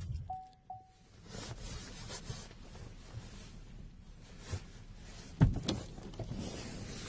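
A car's running noise cuts out, followed by two short electronic beeps from the car. Then come quiet rustling from handling work gloves and a couple of sharp clicks about five and a half seconds in, like a car door latch opening.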